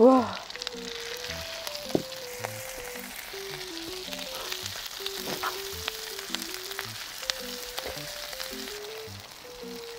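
Beef intestines sizzling and frying in a hot pan as fried rice is started, with a few sharp clicks, the loudest about two seconds in. Light background music with a simple melody plays under it.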